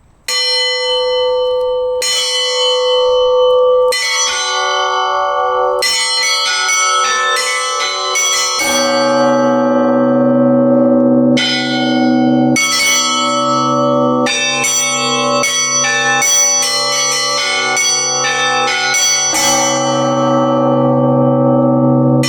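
Russian church bells rung in an improvised festive peal (prazdnichny zvon), its opening section. It begins with single strokes about two seconds apart on a smaller bell. The strokes quicken around six seconds in, and a deeper bell joins about nine seconds in under rapid strikes of the smaller bells.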